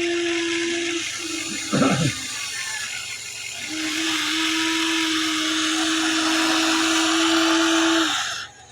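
Huina 1594 RC excavator's electric motors and gearboxes whining at a steady pitch. The whine breaks off about a second in, with a short louder burst near two seconds. It starts again about four seconds in and cuts off near the end.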